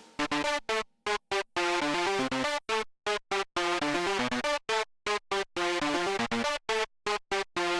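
Electronic music: a synthesizer plays a melody in short notes of changing pitch, cut by abrupt silent gaps.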